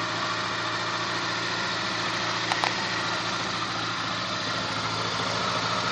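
Volkswagen Polo engine running steadily with a constant hum, with two short clicks about two and a half seconds in.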